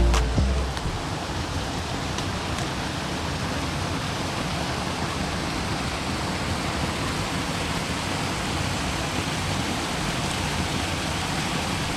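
Steady, even rushing of water, unbroken and without rhythm.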